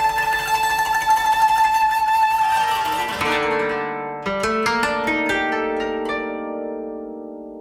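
Background music on plucked strings: a held chord, then a quick run of plucked notes about halfway through that ring out and fade.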